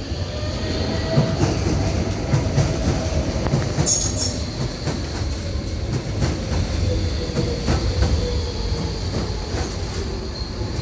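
A train running past on rails: a steady rumble with repeated clicks of the wheels over rail joints and a faint gliding motor whine, plus a brief high-pitched screech about four seconds in.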